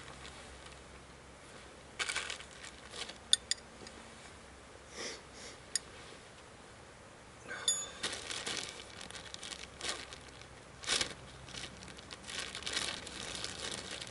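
Plastic bag crinkling and dry twigs rustling in short irregular bursts as the bag and a stick tinder bundle are handled, with a few sharp clicks.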